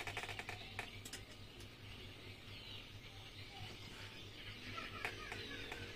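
Faint hand-work sounds on a Yamaha 15 hp outboard's gearbox housing: a quick run of small clicks right at the start, then a few single taps. Small birds chirp faintly throughout.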